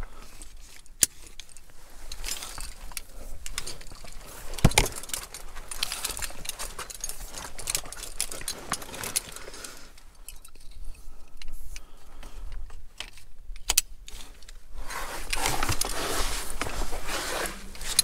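Metal climbing hardware, a rope ascender and carabiners, clinking and jangling during a fixed-rope ascent. Sharp clicks come now and then, a few standing out, over steady scuffing that grows louder near the end.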